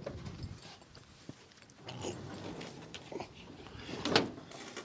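The door of a camping rig being closed up: faint handling and rubbing, a small knock about three seconds in, then a sharper knock a second later.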